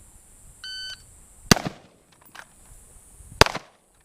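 Shot timer beeps once, then two gunshots ring out about two seconds apart.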